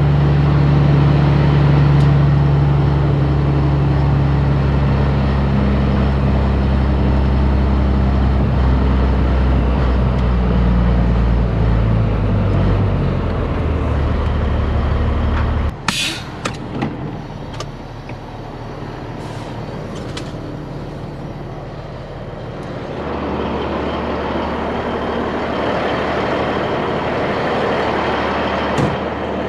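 Heavy diesel truck engine running with a steady low note that drops in pitch, then a sharp burst of air hiss from the air brakes about halfway through as the engine sound falls away, followed by a few clicks. Near the end a steady wash of noise with a low hum comes in.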